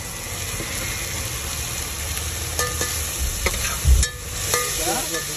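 An onion, tomato and spice masala sizzling in a pan while it is stirred, with a few sharp clicks of the spoon against the pan and a thump about four seconds in.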